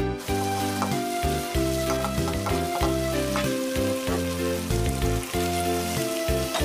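Kurma spice paste and raw chicken pieces frying in oil in a wok, a steady sizzle with a few light knocks, while background music plays a slow melody with bass notes over it.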